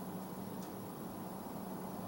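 Steady low background hum and hiss with one faint click about two-thirds of a second in.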